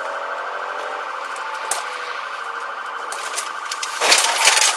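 Police siren sounding steadily, heard from inside the pursuing patrol car. About four seconds in, a loud burst of crash noise lasting under a second: the fleeing car ramming the patrol car.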